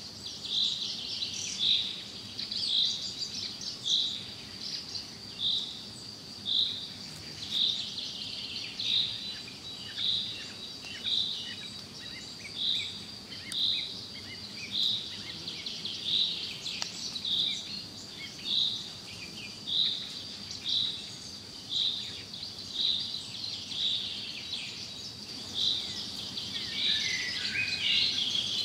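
Wild bird and insect sounds: a short high call repeats about once a second over a continuous high insect hum, with scattered bird chirps and a brief burst of twittering near the end.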